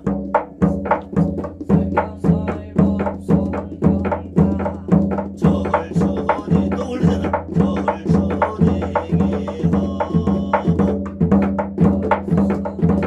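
A Korean drum beaten in a steady, even rhythm of about three strokes a second, with voices chanting a shamanic sutra over the beat.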